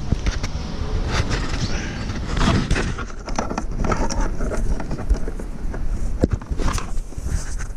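Close handling noise of a fish finder cable and plastic cable-seal parts being worked by hand: irregular clicks, taps and rustles over a steady low rumble.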